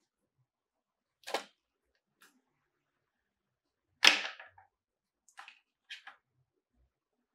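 Unboxing handling noises in otherwise gated silence. A plastic USB cable rustles in the hands about a second in. The cable is set down on the table with a sharp clatter about four seconds in, the loudest sound. Then come two short scrapes as a hand reaches into the cardboard box tray.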